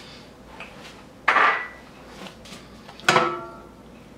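Two clinks of kitchenware, about two seconds apart, the second ringing briefly like glass or a pan touching metal.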